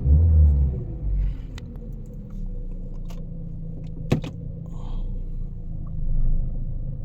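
Car engine with a misfire logged on cylinders 2 and 4 and a general P0300 misfire; its revs fall back over the first couple of seconds and settle to a steady idle. A few sharp clicks come in the middle, the loudest about four seconds in.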